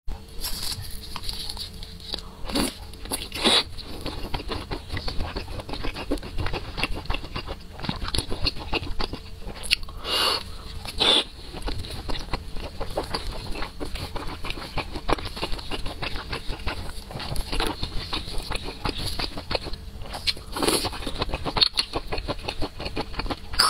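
Close-miked chewing and biting of sauce-coated fried skewers: a steady run of wet, sticky mouth clicks and small crunches, with a few louder bites standing out.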